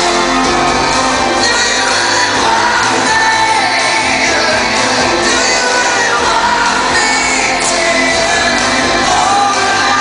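Live rock band performing, loud and steady, with sung and shouted vocals over the full band.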